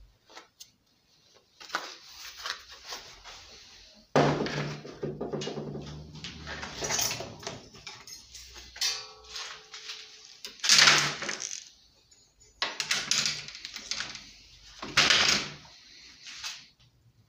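Black plastic recoil-starter cover and housing of a Subaru lawnmower engine, with loose metal parts, being handled and set down on a workbench tray: irregular knocks, clatters and rattles with short pauses, the loudest knocks about eleven and fifteen seconds in.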